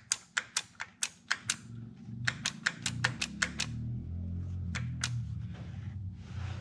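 Two quick runs of light metallic clicks, about six or seven a second, then two single clicks about five seconds in, as the timing chain of a BMW N62 V8 is worked by hand onto its camshaft sprocket.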